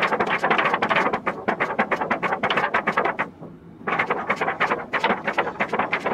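A clear plastic face shield being rubbed hard with a wipe: quick, crackly strokes several times a second, with a brief pause a little past halfway.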